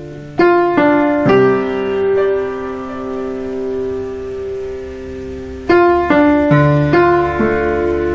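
Background piano music: a few notes struck in quick succession near the start and held, then another short run of notes about six seconds in.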